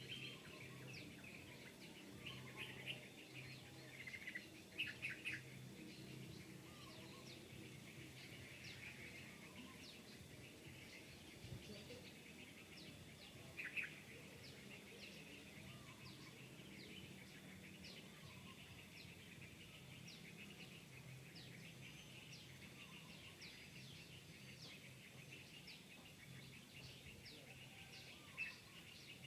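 Faint, scattered high-pitched animal chirps and twitters, louder in short clusters a few seconds in, again around the middle, and briefly near the end, over a faint low hum.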